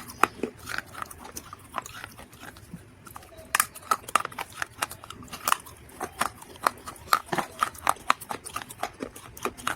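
Dry clay (mud) being bitten and chewed up close to the microphone, a quick irregular run of sharp crunches and crackles.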